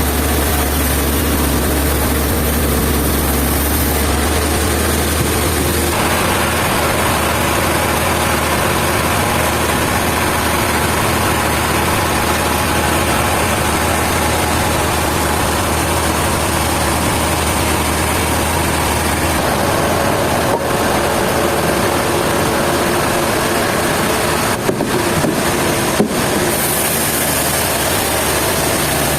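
Sawmill machinery running with a steady mechanical drone and low hum. The sound changes abruptly about six seconds in and twice more later, with a few brief clicks near the end.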